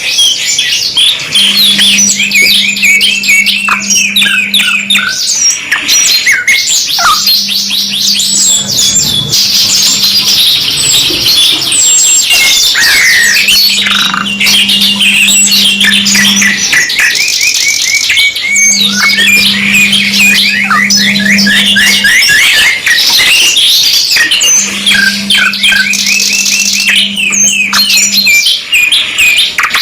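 Domestic canaries singing without pause in fast rolling trills and quick chirps. A low steady hum comes and goes beneath the song, a few seconds at a time, about five times.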